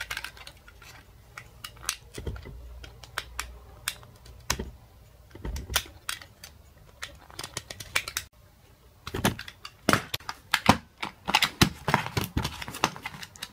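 A thin metal blade prying and scraping at the seam of a plastic USB charger case: irregular sharp clicks and scrapes, sparse at first and coming thick and fast from about nine seconds in.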